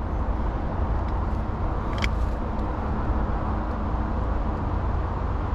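A steady low rumbling background noise, with one light click about two seconds in.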